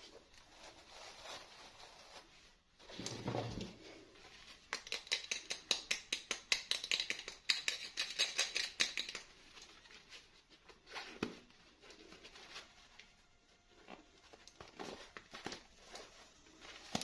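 Toy packaging being handled and opened by hand: a dull bump, then a run of rapid crisp clicks and crackles for about four seconds, then scattered light taps and rustles.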